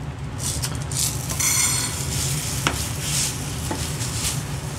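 Dry sodium hydroxide drain-cleaner granules pouring from a plastic bottle into a glass bowl, a grainy hiss with a couple of sharp clicks near the middle.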